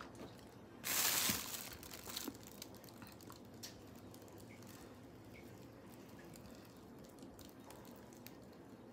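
Faint wet crackling and small ticks as segments of sticky, sauce-coated santol fruit are pulled apart by hand. A short breathy rush about a second in is the loudest sound.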